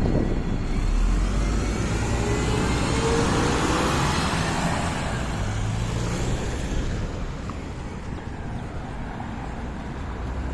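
Diesel engine of a Higer KLQ6129GQ2 city bus running at high idle, with a faint whine gliding in pitch a few seconds in; the sound grows gradually quieter over the last few seconds as the idle speed drops.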